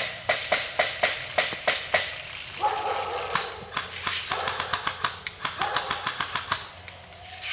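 Airsoft guns firing: a string of single shots about three a second, then longer bursts of rapid fire with a steady whine running under them.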